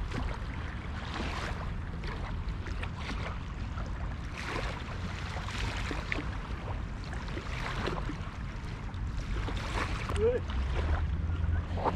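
Small waves lapping onto a sandy shore at the water's edge, a soft wash that rises and falls every second or two, over a steady low rumble of wind on the microphone.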